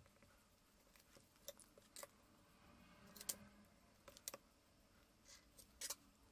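Faint taps and clicks of a marker pen, a plastic ruler and paper templates being handled on a sheet of white glass, over near silence. The clearest taps come a little past three seconds and just before six.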